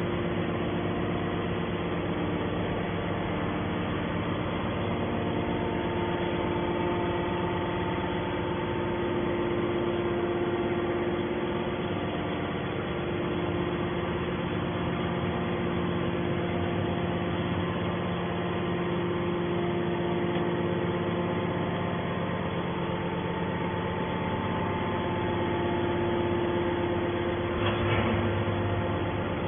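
Steady machine hum with a constant low drone that holds unchanged, and a brief knock near the end.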